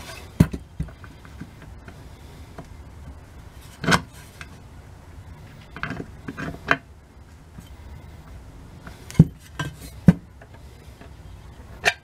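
Irregular metal clinks and knocks as a painted steel switch panel and its small parts are handled and set down on a workbench, over a low steady hum.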